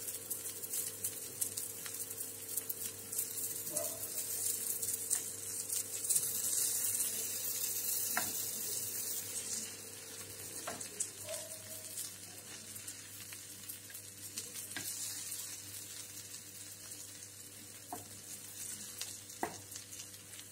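Masala dosa sizzling in butter on a hot tawa, with a few light ticks and scrapes of a spatula as it is folded over. The sizzle is strongest in the first half and eases after about ten seconds.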